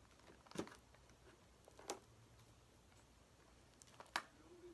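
Near silence broken by three short, sharp clicks, spread over a few seconds, from scissors and a cardboard snack box being handled.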